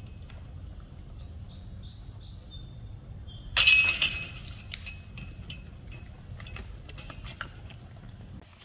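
Disc golf basket's metal chains and cage jangling as a disc strikes or drops into it, a sharp clatter about a third of the way in that dies away within half a second, with a smaller clink near the end. Faint bird chirps before it.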